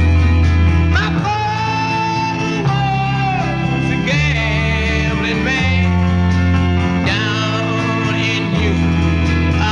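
1960s rock recording: a male lead voice sings over guitar, organ, bass and drums.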